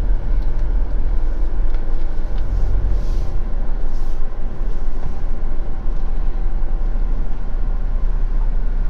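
Motorhome engine running at low speed with a steady low rumble as the vehicle manoeuvres slowly.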